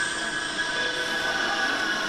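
Eerie horror-film sound design: a steady metallic drone of several high held tones, with occasional squeals that slide in pitch.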